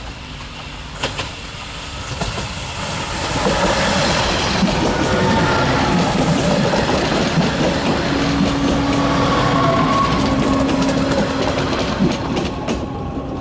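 Stadler GTW 2/6 diesel railcar passing close by on metre-gauge track. Its running noise builds up, holds loud with a steady hum and wheels clicking on the rails, then eases off near the end as it goes away.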